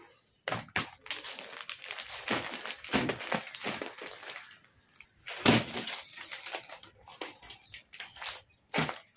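Clear plastic packaging of boxed suit sets rustling and crinkling as the packs are handled, stacked and set down, with a louder bump about halfway through.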